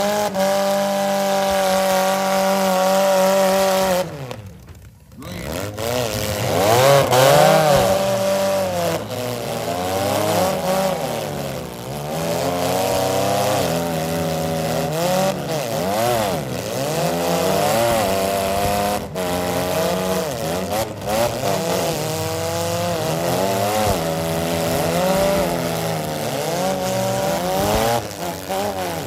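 Demolition derby compact cars' engines revving hard, their pitch surging up and down again and again as they push against one another with wheels spinning in the dirt. The engine noise drops out briefly about four seconds in, and a couple of sharp knocks come in the second half.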